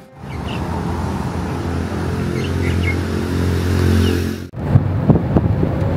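Outdoor street sound: a motor vehicle's engine running steadily and growing louder, with a few bird chirps. About four and a half seconds in it cuts off suddenly, and a quick run of sharp knocks and clatter follows.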